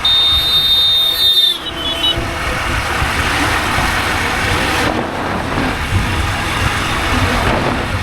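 Road traffic noise heard while riding a motorcycle, a steady rumble of engines and rushing air. A high-pitched vehicle horn sounds for about a second and a half at the start, dropping slightly in pitch as it stops, followed by a short broken second toot.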